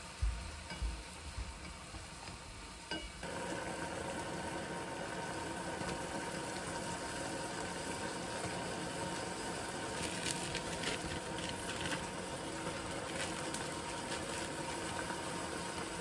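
Marinated bulgogi beef cooking in a pot on a gas stove. Tongs knock against it at first, then after an abrupt change about three seconds in comes a steady sizzling and bubbling as it simmers in its juices, with a few light clicks later on.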